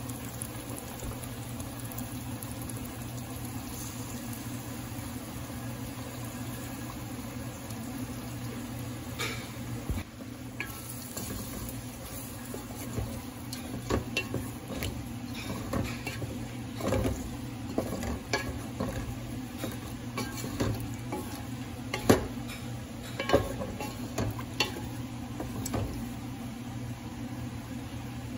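Wooden spatula stirring and scraping sliced peppers and onions frying in an aluminium pot, over a steady low sizzle. The knocks and scrapes against the pot come mostly in the second half, with one sharper knock among them.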